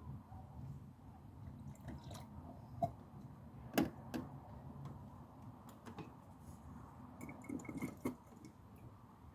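Engine coolant being drawn up with a turkey baster and squirted into a container: dribbling liquid with scattered light clicks and taps of plastic, the loudest about four seconds in, over a low steady hum.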